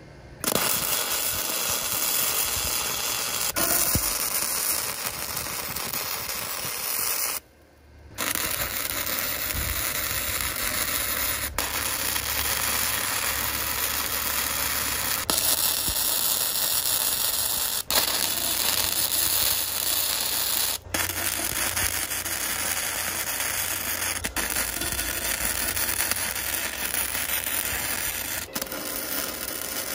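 MIG welding arc crackling steadily on steel tubing, breaking off once for about a second around seven seconds in.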